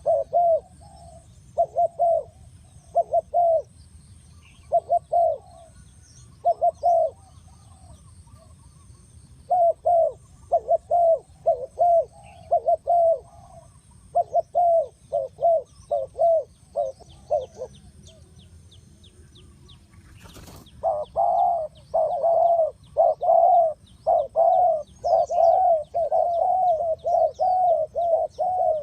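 Spotted dove cooing: groups of low, repeated coo phrases with short gaps. After a pause and a sharp click about two-thirds of the way in, the cooing comes back louder and in quicker succession.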